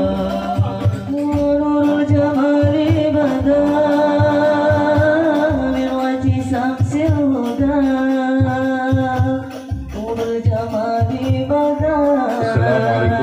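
A solo voice singing a slow melody in long, ornamented held notes, with hand-drum beats underneath.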